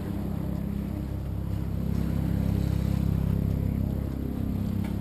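Low engine drone of a passing motorboat, swelling to its loudest about halfway through and easing off near the end.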